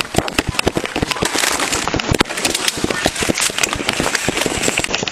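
Handling noise from an Axon Body 2 body-worn camera jostled hard against clothing and bodies during a physical struggle: dense crackling and knocking, many sharp clicks a second.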